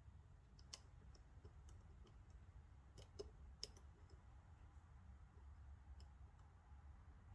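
A handful of faint, sharp clicks from a lock pick working the pins of a Lockwood MT5 (mastered Mul-T-Lock MT5+) cylinder, over a low steady hum.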